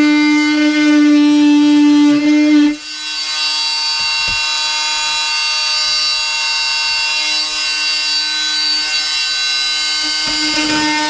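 Oscillating multi-tool running steadily with a buzzing hum as it cuts. About three seconds in the sound dips briefly, then carries on a little quieter.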